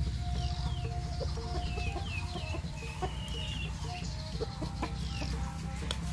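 Chickens clucking in a farmyard, with repeated high, falling chirps over a steady low background.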